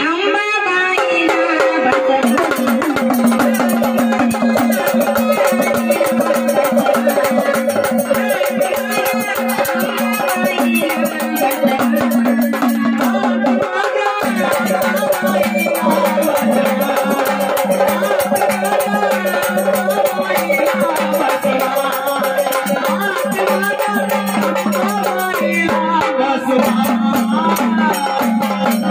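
Devotional folk song music from a jagran party: held melody notes over a busy, driving beat of drums and rattling percussion.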